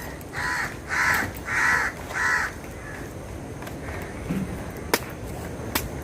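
A crow cawing four times in quick succession, each caw about half a second long. A couple of sharp clicks follow near the end.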